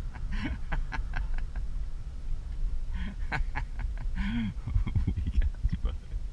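Inside the cabin of an eighth-generation Honda Civic coupe on the move: steady engine and road rumble. Over it come scattered short clicks and a few brief squeaky sounds, with a cluster of low knocks about five seconds in.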